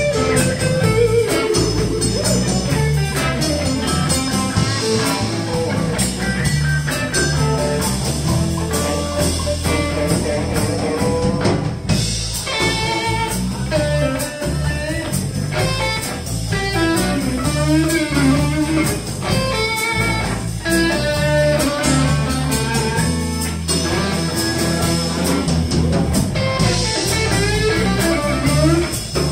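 Live electric blues band playing an instrumental passage: an electric guitar lead with bent notes over bass guitar and a drum kit.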